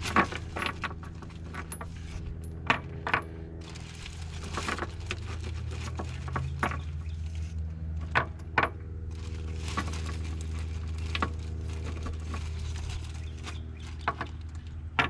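Metal hand tools and parts clinking and clicking at irregular intervals, over a steady low hum.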